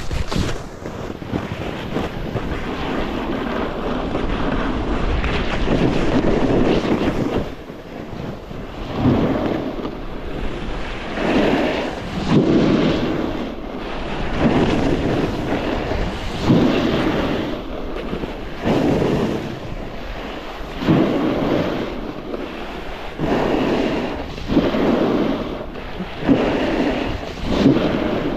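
Snowboard riding down a groomed run: the board's edge scrapes the snow in a swell with each turn, about one every two seconds, over steady wind noise on the microphone.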